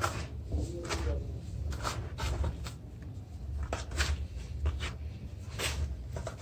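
Hands crumbling and mixing wet red sand cubes in a plastic basin: irregular crunchy scraping and crumbling, about one or two strokes a second, over a steady low hum.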